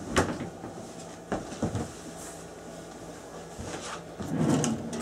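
A few short knocks and clicks of galley cupboard doors and drawers being handled, over a faint steady hum.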